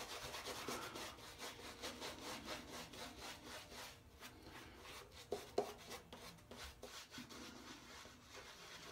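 Shaving brush lathering a stubbled face: a quick, steady scrubbing swish of bristles on skin and whiskers. Two brief sharper sounds cut in about five and a half seconds in.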